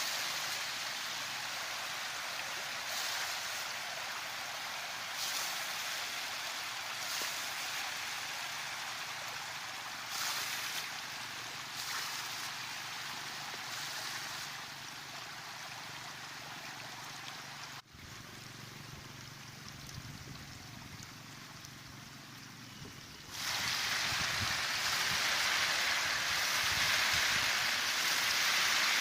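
Shallow muddy water sloshing and splashing steadily as it is stirred by hand, with a few louder splashes. The sound drops suddenly about 18 seconds in and grows louder again from about 23 seconds in.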